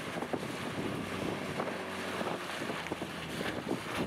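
Motor boat under way across choppy water: wind buffeting the microphone over an outboard motor's drone, with the splash and slap of waves against the hull.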